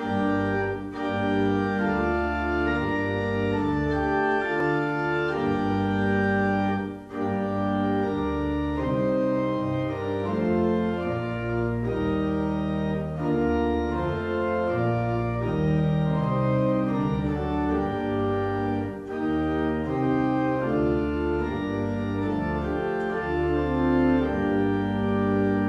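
Pipe organ playing slow sustained chords over deep held bass notes, the harmony changing every second or two, with brief pauses between phrases.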